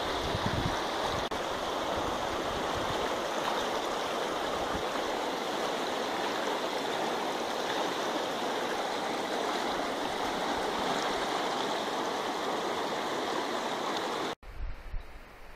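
Fast-flowing mountain river rushing over rapids, a steady even roar of water. It cuts off suddenly near the end, leaving a quieter low rumble.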